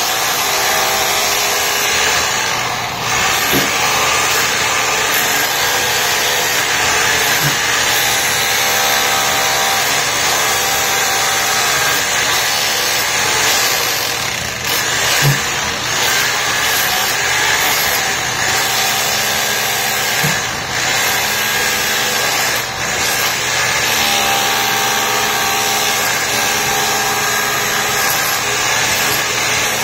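SDS hammer drill with a chisel bit hammering against a concrete floor to break out carpet tack-strip nails. The motor and hammering run loud and continuous, with a few brief dips.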